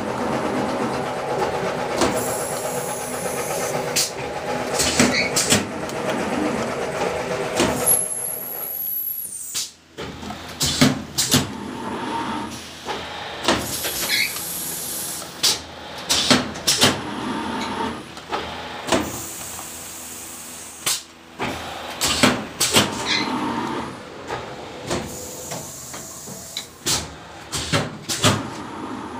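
Plastic bottle blow moulding machine running: a steady hum with frequent clanks and repeated hisses of compressed air. The hum drops away briefly about nine seconds in.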